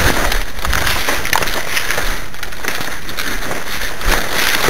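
Twigs and leaves of dense scrub bushes crackling and rustling as someone pushes through them on foot, swelling and fading in an uneven rhythm of steps.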